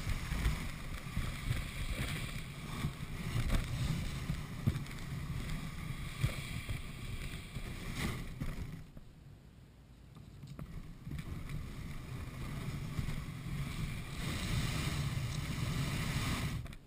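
Kayak hull dragged over crusty snow and then gravel, a continuous scraping grind with a single knock about eight seconds in. The grinding eases briefly around nine seconds and then picks up again.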